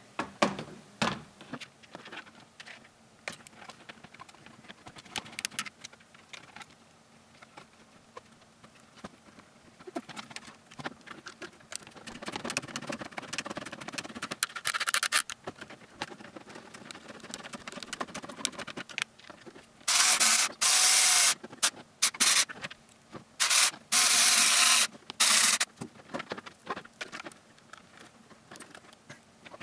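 Small cordless electric screwdriver running in two spells of about two seconds each, about two-thirds of the way through, driving screws into 3D-printed plastic suspension parts. Before that, light clicks and rattles of hands handling plastic parts and screws.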